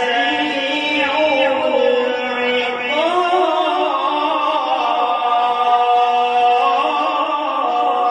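A man reciting the Quran in the melodic qirat style, holding long drawn-out notes that waver and turn in pitch.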